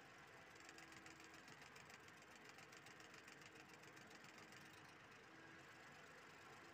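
Ford Fiesta engine idling rough and faint, with a rapid, even ticking for most of the time: the engine is misfiring.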